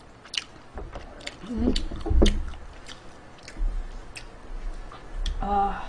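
Scattered sharp clicks and taps of chopsticks picking at stir-fried sundae on a metal tray, close to the microphone. A brief low voiced sound comes about two seconds in, and a short hum near the end.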